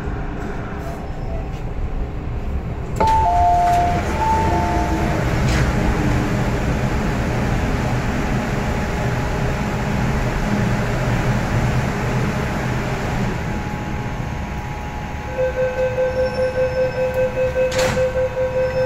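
MTR M-train stopped at a platform, its equipment running with a steady hum. About three seconds in, a chime of alternating high and low notes sounds as the doors open. Near the end the door-closing warning beeps rapidly, about four beeps a second.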